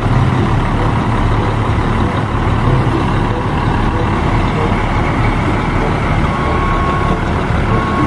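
Concrete mixer truck standing still with its diesel engine running steadily and the mixer drum turning, a continuous low rumble. A short high tone sounds twice near the end.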